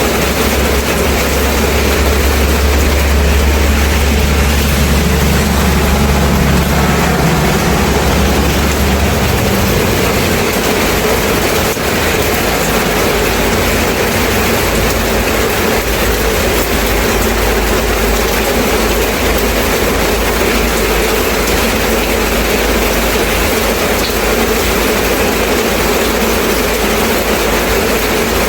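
Steady rain falling, an even hiss. A low rumble sits under it for the first nine seconds or so and ends about nine seconds in.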